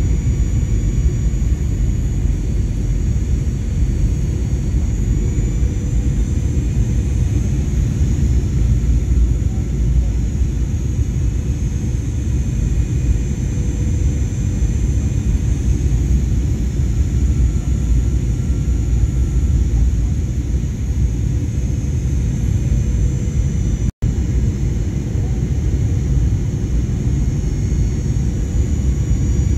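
Steady rumble of a jet airliner heard from inside the cabin, with a faint, slightly wavering high engine whine above it. The sound cuts out for an instant about four-fifths of the way through.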